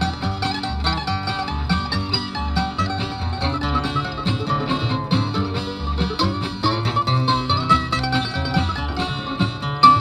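Acoustic bluegrass string band playing an instrumental break between sung verses: quick plucked-string melody over a steady bass beat.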